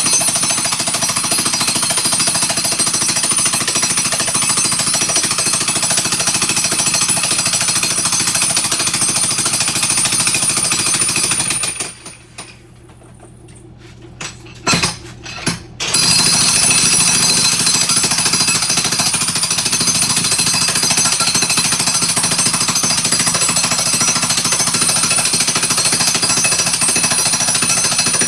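Jackhammer hammering continuously as it breaks up floor tile. It stops about twelve seconds in, a few sharp knocks sound over the next few seconds, then it starts hammering again.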